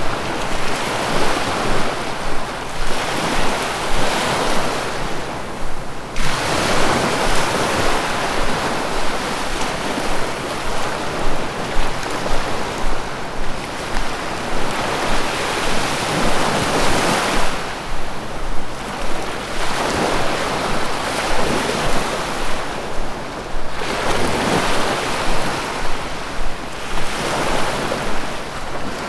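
Sea waves breaking and washing on a shore: a continuous rush of surf that swells and eases in surges several seconds apart.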